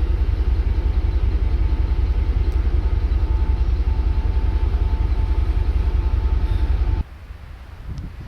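Loud, steady low rumble with a faint steady hum above it, cutting off suddenly about seven seconds in and giving way to much quieter surroundings.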